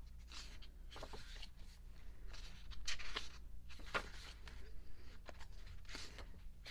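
Pages of an album photobook being turned and handled: a string of short paper rustles and flicks, the loudest about three seconds in.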